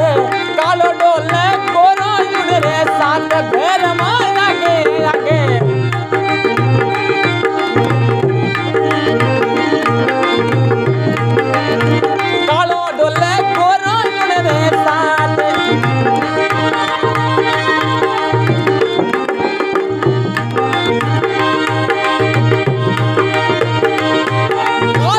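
Instrumental music: a tabla-style hand-drum rhythm under held chords, with a wavering melodic lead line that comes in at the start and again about halfway through.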